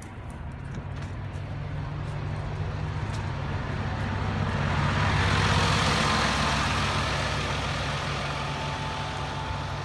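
Single-deck diesel bus driving past close by and pulling away. Its engine drone and road noise swell to their loudest about halfway through, then fade as it moves off. A faint steady higher tone comes in near the end.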